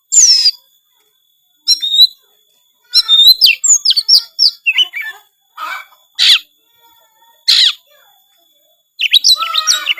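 Oriental magpie-robin singing loudly in short, varied phrases of whistles, downslurred notes and harsh notes, separated by brief pauses.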